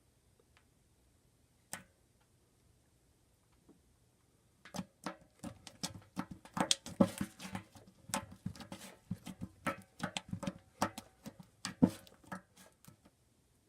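Slime being poked, making clicks: a single click near two seconds in, then a quick, irregular run of clicks from about five seconds in until near the end.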